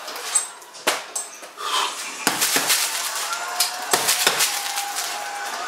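Boxing gloves punching hanging heavy bags made of car tyres wrapped in plastic film: a handful of sharp, irregular hits, some in quick pairs.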